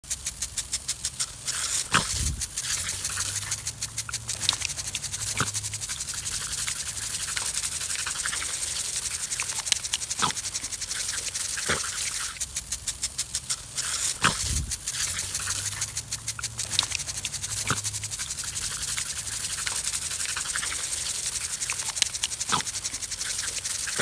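Garden sprinkler spraying with a hiss and a fast rattling tick, while a dog snaps and grunts at the water jet, with sharp clicks now and then.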